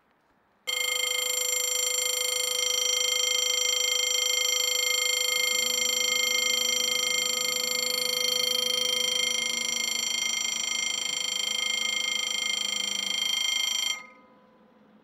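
Level-crossing warning bell ringing continuously, starting suddenly about a second in and cutting off abruptly near the end once the barriers are down. It warns road users that a train is approaching.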